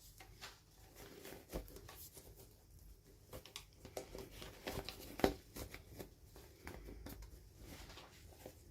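Faint, irregular small clicks and crinkles of toy packaging being handled and opened during an unboxing, with one sharper click about five seconds in.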